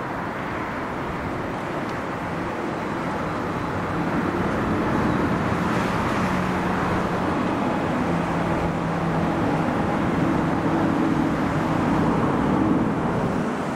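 Jet engines of a Boeing 787-8 airliner flying overhead: a steady rumble of jet noise with a low hum in it, growing louder about four seconds in.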